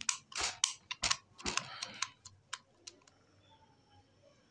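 Sharp metallic clicks and taps of hand tools and parts against a kitchen sink tap being taken apart, about half a dozen in the first three seconds, then quiet.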